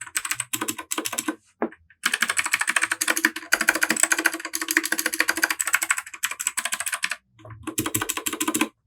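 Fast typing on a Royal Kludge RK100 mechanical keyboard with Gateron Blue clicky switches: rapid runs of sharp clicking keystrokes, with a short pause about a second and a half in and another near the end.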